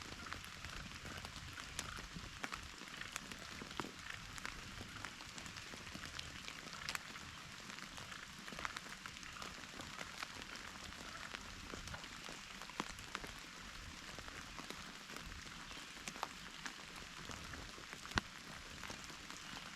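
Rain falling as a steady hiss, with scattered drops ticking close by and one sharper tick near the end.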